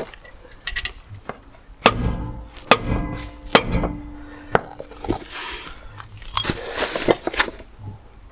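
Metal parts of a van's brake assembly clanking and clinking as they are knocked and handled with tools: about seven sharp knocks, one of them leaving a ringing metallic note for a couple of seconds, with scraping between them.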